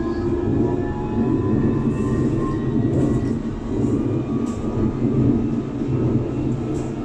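London Underground District Line train running between stations, heard from inside the carriage: a steady, loud rumble of wheels and running gear on the track that swells and eases slightly.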